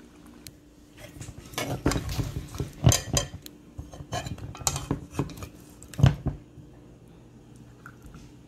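A metal spoon scraping and clinking against a pot as pieces of curry chicken are scooped out onto a plate, over about five seconds, with two louder knocks about three and six seconds in.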